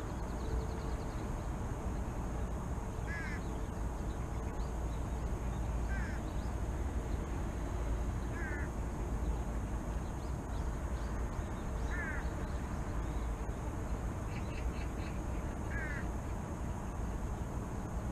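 A bird repeating a short call about every three seconds, five times, over a steady low rumble of city background noise.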